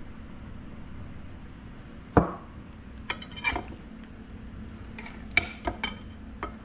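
Kitchen dishes and utensils knocking and clinking while fish is coated in seasoning on a plate: one sharp knock about two seconds in, then several lighter clinks, over a faint steady hum.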